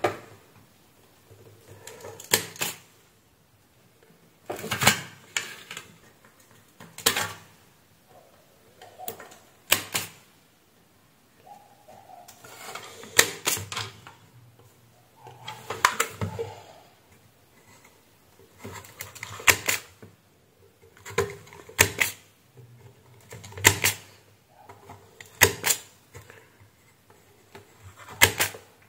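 Electric desoldering gun's built-in vacuum pump, triggered again and again every two to three seconds: each trigger gives a sharp click and a short burst of suction, a couple of them about a second long. It is sucking melted solder off an IC's pins.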